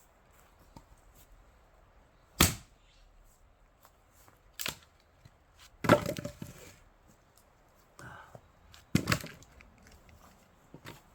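Splitting axe striking pine rounds: about five sharp separate blows a second or two apart, the loudest near the middle followed by a brief crackle of wood splitting.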